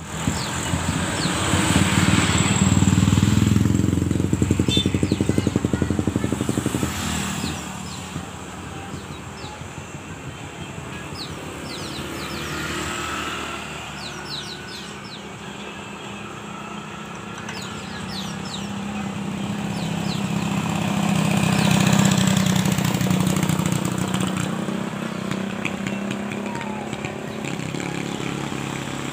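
A motor vehicle engine passes by twice, loudest a few seconds in and again about two-thirds of the way through. Behind it a small bird gives many short, rapid chirps.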